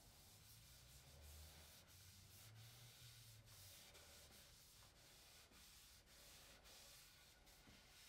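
Faint rubbing of a cloth over a wooden stool seat in repeated strokes as finish is wiped on.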